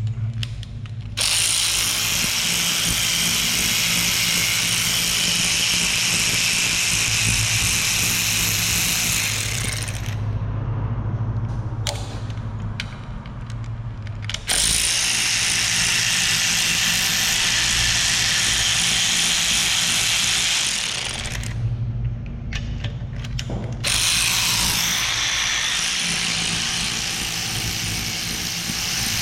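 A power tool running in three long stretches of several seconds each, with short pauses between, over a steady low hum. It is the sound of fasteners being run out during an engine teardown.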